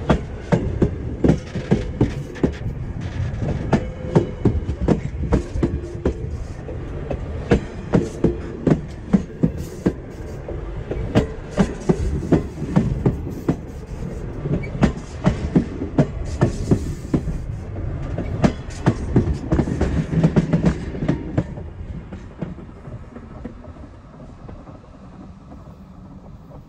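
Railroad passenger cars rolling directly over a microphone lying between the rails: a continuous low rumble broken by many sharp wheel clicks, fading away about 21 seconds in as the last car passes.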